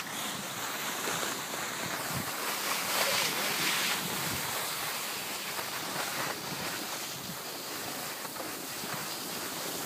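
Steady hissing rush of a snowboard sliding and scraping over packed snow, a little stronger about three seconds in, mixed with wind on the microphone from the moving camera.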